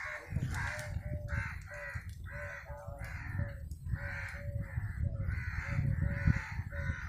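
An animal calling over and over in short, harsh, evenly spaced calls, about two a second, over a low rumble.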